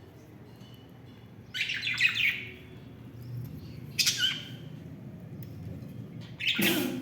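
Pet budgerigars chirping in three short bursts, the last, near the end, the loudest.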